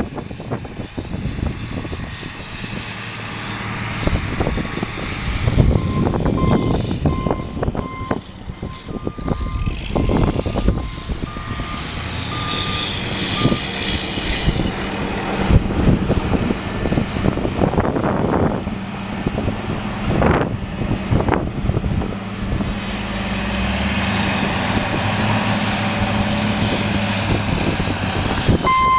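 Snow-clearing tractor's engine running steadily, its reversing alarm beeping in short repeated tones for several seconds about a quarter of the way in. Bursts of rushing noise run throughout.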